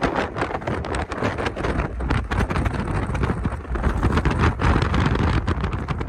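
Wind buffeting the microphone: a steady heavy rumble with irregular gusty crackles.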